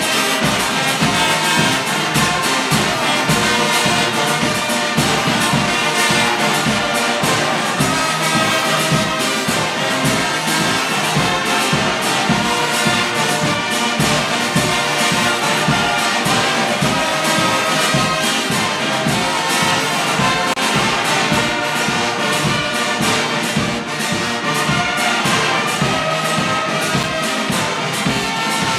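Brass band of trumpets and trombones playing together, with a steady low beat under the horns.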